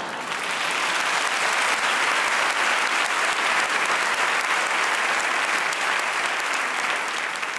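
A large theatre audience applauding a joke: a dense, steady clapping that builds over the first second and dies away near the end.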